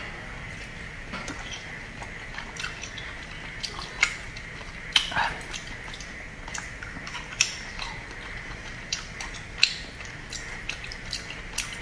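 Close-miked wet chewing and lip smacking of raw salmon sashimi: soft squishy mouth sounds broken by sharp smacks and clicks every second or so.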